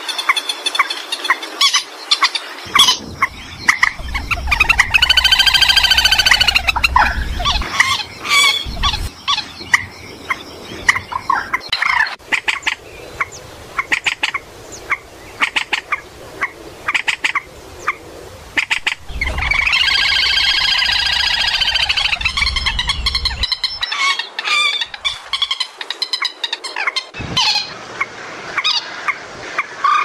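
Recorded calls of a rail-family waterbird, the 'trích' of a bird-trapping lure track: a steady run of short clicking notes, with two stretches of loud, drawn-out cackling calls about four seconds in and again near twenty seconds, each lasting around four seconds.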